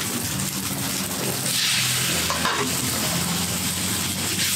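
Pad thai of shrimp, tofu and rice noodles sizzling in a hot wok, stirred and scraped with a wok spatula. The sizzle grows louder about a second and a half in.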